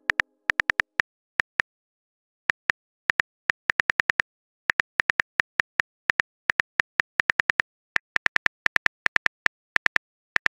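Phone-keyboard typing clicks: short, sharp taps in quick, irregular runs, broken by a few pauses of up to about a second.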